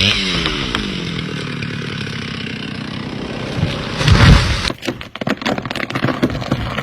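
Chainsaw running, its pitch dropping just after the start, then holding steady. A heavy low thud about four seconds in, after which the saw stops and a run of sharp cracking and snapping of wood follows.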